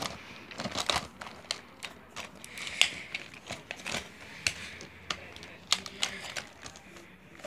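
Plastic toy dinosaur figures being handled and pressed together on a blanket: irregular clicks, taps and rustling.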